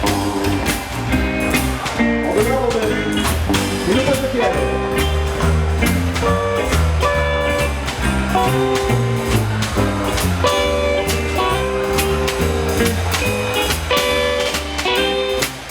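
Live rockabilly band playing, with a steady bass line, drum hits and guitar notes.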